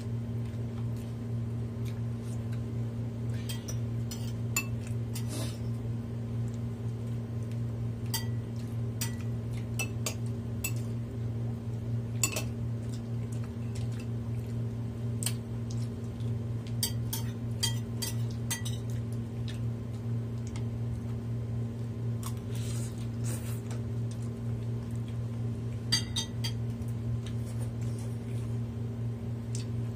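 Cutlery clinking and scraping against dishes in scattered, irregular strikes, as someone eats a meal, over a steady low hum.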